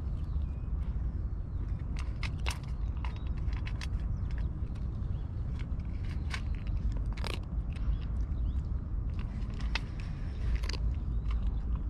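Two cats eating food put down for them, chewing with irregular sharp clicks of teeth on food, over a steady low rumble.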